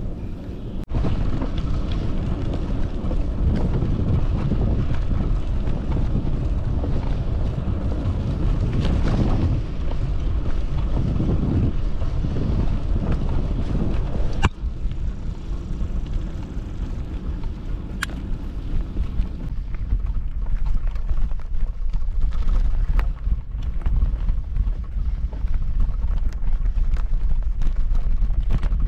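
Wind buffeting the microphone: a loud, uneven low rumble, with a couple of sharp clicks in the middle.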